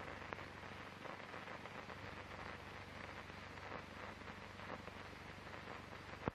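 Hiss and crackle of a worn old film soundtrack with a steady low hum. It ends in a sharp click near the end, after which the noise drops quieter.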